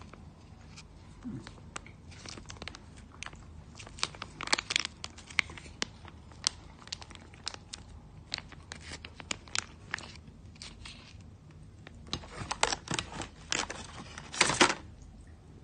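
Plastic salad-dressing sachet crinkling and crackling as it is squeezed out over a salad in a plastic takeaway box. It makes a run of small clicks and crackles, with louder bursts about four seconds in and near the end.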